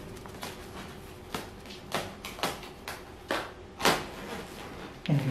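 Plastic cling wrap crackling in a series of short crinkles, about every half second, as hands stretch and press the film down over a fleece blanket.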